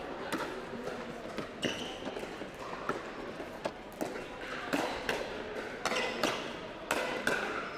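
Pickleball paddles striking a plastic ball in a fast net exchange of volleys, a string of sharp pops about one or two a second.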